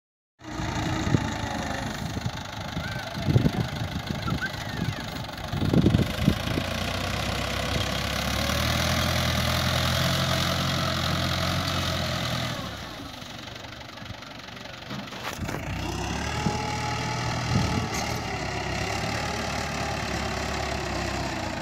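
Farm tractor's diesel engine running steadily as it drags a leveller through wet clay. The engine note drops away for a few seconds past the middle, then picks up again. A few loud thumps come in the first six seconds.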